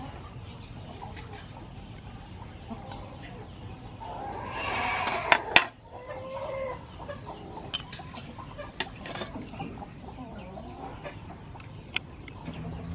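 Chickens clucking, with one louder drawn-out hen call about four to five seconds in, followed right after by two sharp clicks.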